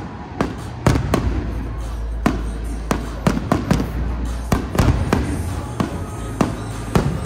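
Aerial fireworks shells bursting in quick, irregular succession: more than a dozen sharp booms over a continuous low rumble.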